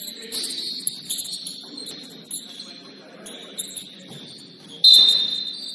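Basketball sneakers squeaking on a gym floor during play, a wavering high-pitched squeal with short sharp chirps. About five seconds in there is one loud, sharp squeal that fades away.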